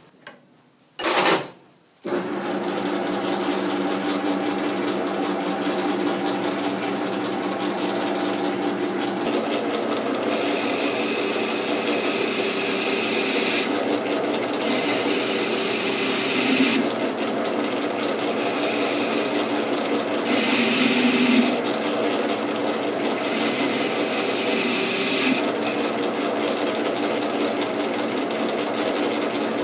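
Metal lathe running with a four-jaw chuck while a carbide-insert turning tool cuts the inside corner of a metal hub, a steady machine hum under the cut. A short loud noise about a second in, then the lathe runs. From about ten seconds on, a high cutting hiss comes and goes in several stretches as the tool is fed into the work and backed off.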